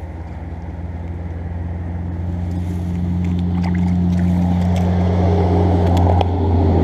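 Low, steady engine drone growing gradually louder, with a few faint clicks over it.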